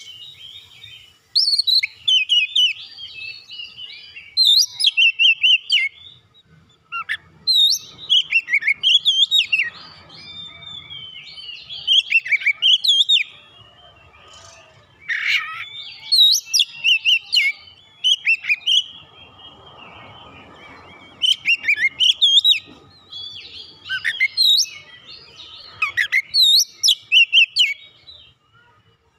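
Oriental magpie-robin (kacer) singing: loud, varied whistled phrases with quick up-and-down sweeps in pitch, in bursts separated by short pauses.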